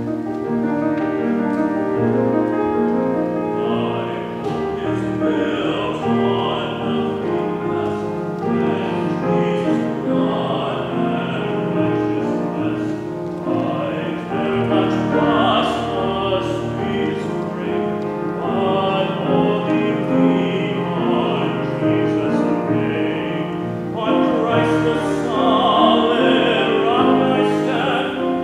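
A piano plays a short introduction, then a male soloist enters about four seconds in and sings a sacred solo in a classical style with vibrato, the piano accompanying him.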